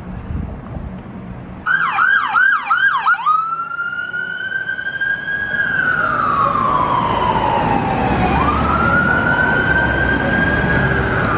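Emergency vehicle siren: four fast yelps about two seconds in, then a long wail that slowly falls and rises again, over the low rumble of street traffic.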